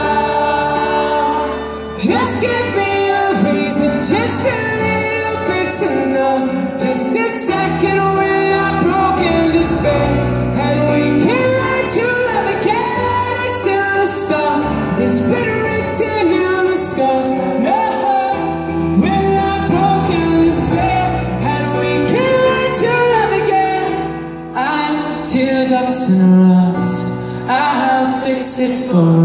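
Live pop band playing, with a man singing lead through a microphone and drums keeping a steady beat.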